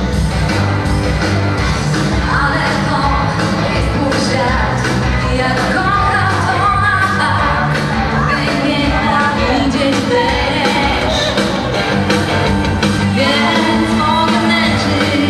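Upbeat dance music with singing over a steady beat.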